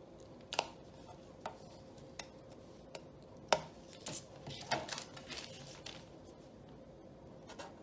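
X-Acto knife cutting paper along the edge of a license plate blank, with a series of sharp clicks and taps as the blade and plate knock against the tabletop. The loudest tap comes about three and a half seconds in, followed by a couple of seconds of scratchy scraping and handling.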